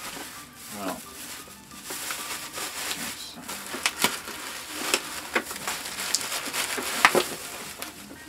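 Plastic bubble-wrap bags crinkling and crackling as they are pulled off and handled, with many sharp crackles that grow busier after the first couple of seconds.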